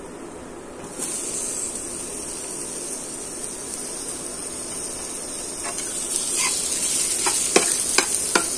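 Sliced onions sizzling as they hit hot oil and cumin seeds in a metal frying pan: the sizzle starts about a second in and grows louder. Near the end, a metal spatula clicks and scrapes against the pan as the onions are stirred.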